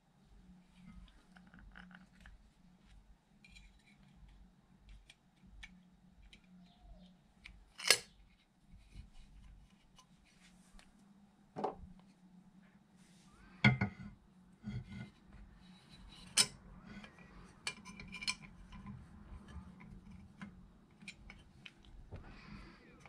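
Hand tools and small metal parts being handled on a workbench: scattered light clicks and clinks, with a few sharper metallic knocks.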